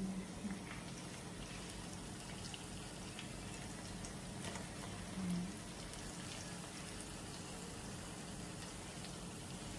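Pieces of Arabic flatbread (khubz) frying in hot oil in a pan: a steady, quiet sizzle with scattered small crackles. A brief low hum about five seconds in.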